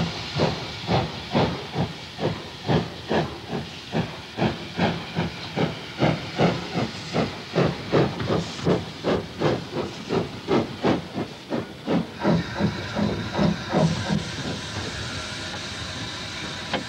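Steam locomotive GNR Stirling Single No. 1 working a train, its exhaust chuffing in a steady beat about two to three times a second, with hissing steam. About twelve seconds in, the beats fade and a steady hiss of steam with a thin high tone takes over.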